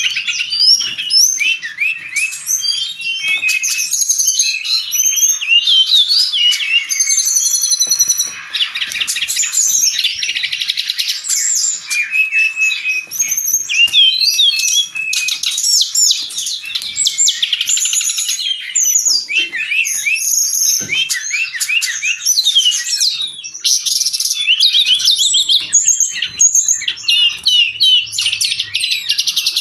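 Brown-chested jungle flycatcher singing without pause: a fast, dense run of high chirps, slurred whistles and trills, broken by harsh, buzzy rasping phrases.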